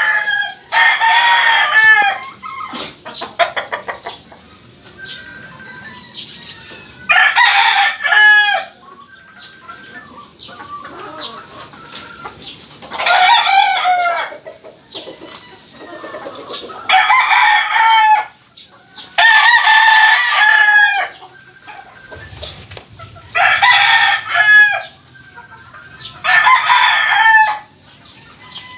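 Gamecock roosters crowing again and again, about eight crows of a second or two each, spaced a few seconds apart, some coming in quick succession.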